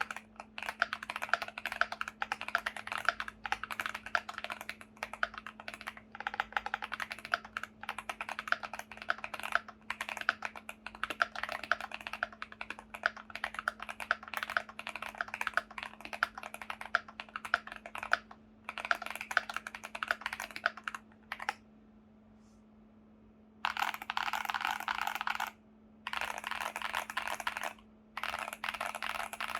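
Finalkey V65 r2 mechanical keyboard with stock Betty tactile switches on a tape-modded FR4 plate, typed on fast and continuously. Near the end the typing stops for about two seconds, then returns as three dense bursts of very rapid key presses.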